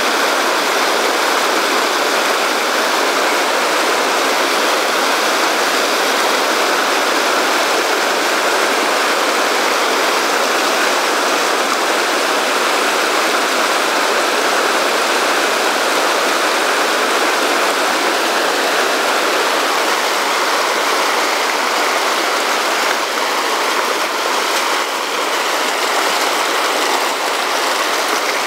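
Fast, rocky mountain river rushing over boulders through pocket water: a steady, loud whitewater rush, easing slightly about three-quarters of the way through.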